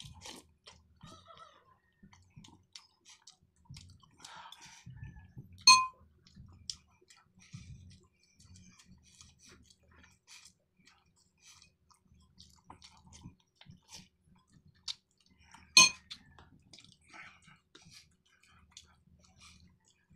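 Close-miked eating: wet chewing and small smacking clicks of a mouth working through miswa noodle soup, sardines and rice. Two sharp, ringing clinks of tableware stand out as the loudest sounds, about six seconds in and again about ten seconds later.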